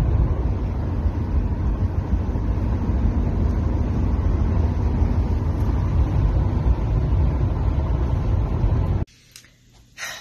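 Steady low rumble of road and engine noise inside a moving car, cutting off suddenly about nine seconds in.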